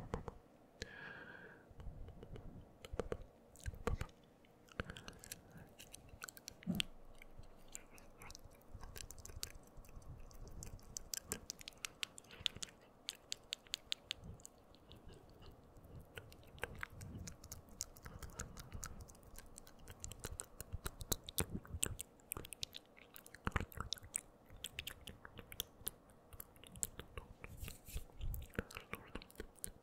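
Close-up ASMR mouth sounds: wet clicks, smacks and tongue taps made right at the microphone, in quick irregular runs that grow denser about ten seconds in.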